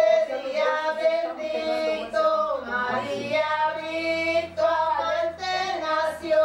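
A woman's voice singing a slow song, holding long steady notes between shorter phrases.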